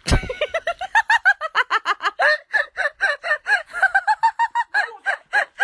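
A sudden thump, then a fast run of short, high, cackling cries, about five a second, going on without a break.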